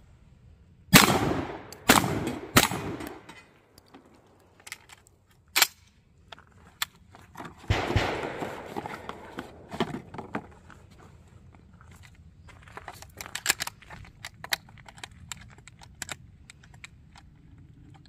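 Remington 1100 12-gauge semi-automatic shotgun firing three rapid shots of 8-shot birdshot, under a second apart, emptying its plugged three-round load, each with a short echo. Several seconds later comes another loud knock, then a run of small metallic clicks as shells are pushed into the loading port.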